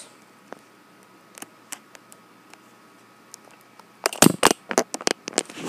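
Quiet room tone with a few faint ticks, then about four seconds in a rapid cluster of loud clicks and knocks, the handling noise of a phone being moved and fumbled while it records.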